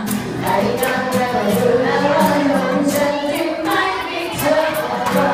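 A song with a steady beat and group singing that includes children's voices.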